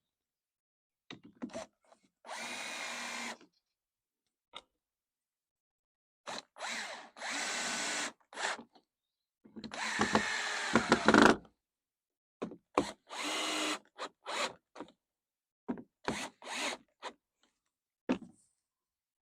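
Power drill driving screws into pallet-wood shelf slats in several bursts of a second or two, its motor pitch sagging slightly under load, with short clicks and knocks between runs. The loudest run, about ten seconds in, ends in a few sharp knocks.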